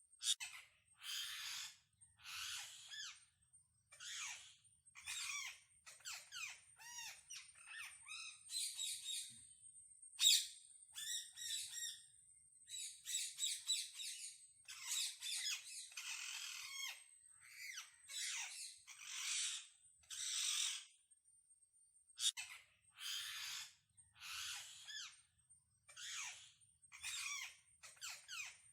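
Parrot calling: a long run of short, harsh squawks and chirps, about one a second, with a brief pause about three-quarters of the way through. A thin, steady, high-pitched whine runs underneath.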